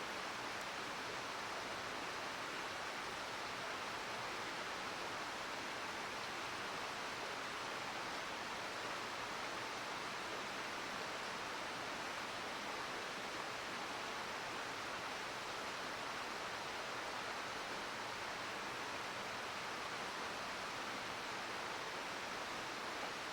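A mountain stream flowing steadily: an even, unbroken rush of water.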